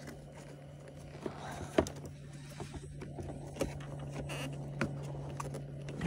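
A few sharp clicks and taps of a plastic switch and its connector being handled and pushed against a plastic mounting plate, the loudest a little under two seconds in, over a steady low hum.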